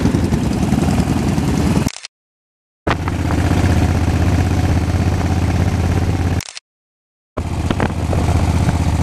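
Twin-cylinder motorcycle engine running steadily while the bike is ridden, heard from the rider's seat. The sound breaks off into silence twice for under a second.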